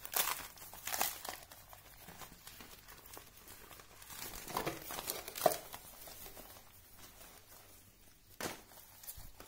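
Deflated vinyl inflatable punching bag being unfolded and smoothed flat by hand, its thin plastic crinkling and rustling in irregular bursts, with a sharp crackle near the end.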